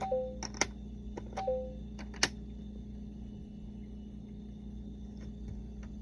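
Plastic letter pieces clicking against a LeapFrog Fridge Words magnetic word builder as they are pulled from and pushed into its slots. Twice in the first second and a half, the toy answers with a short falling two-note beep, and a few fainter clicks come later. A steady low hum runs underneath.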